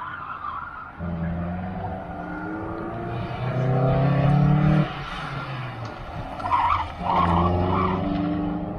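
A car on an autocross course accelerating hard. The engine revs up in a rising pitch, backs off suddenly about five seconds in, then pulls hard again, with a short tyre squeal through a turn about seven seconds in.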